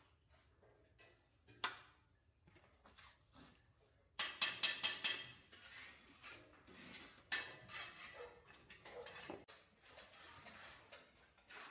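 Dishes and metal utensils clattering and knocking, irregular. A few scattered clicks at first, then a busier run of clatter from about four seconds in.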